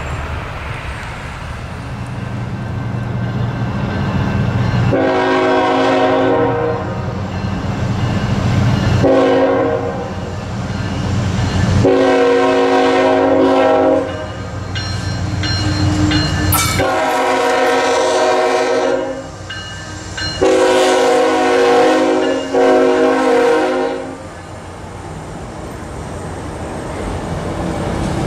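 A freight train rumbles along, then a diesel freight locomotive's air horn sounds a chord of several notes in about five blasts of a few seconds each, warning as the train approaches a grade crossing. The rumble of the moving train returns near the end.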